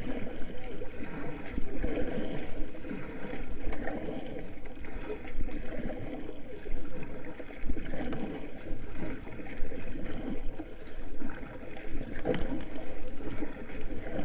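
Sea water sloshing and splashing against a large fishing paddleboard, rising and falling unevenly every second or two.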